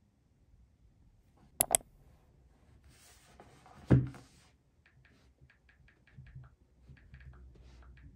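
Two sharp clicks about one and a half seconds in and a thump near the middle as an iPad Air in a folio case is handled on a desk. Then a run of light, quick taps from typing on the iPad's on-screen keyboard.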